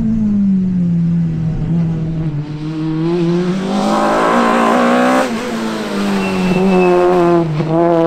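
Citroën C2 Super 1600 rally car's high-revving 1.6-litre four-cylinder engine driven hard, its revs rising and falling with throttle and lifts. It is loudest and roughest about four to five seconds in, then drops away abruptly just after.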